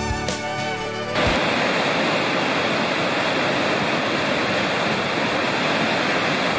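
Background music for about the first second, then cut to the steady rush of the Schüss river's whitewater pouring fast through the rocky Taubenloch gorge.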